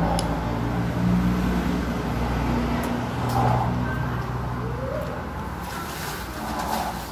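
A motor vehicle's engine running as a steady low hum that fades after about five seconds, with a few light clinks of a metal spoon against a bowl.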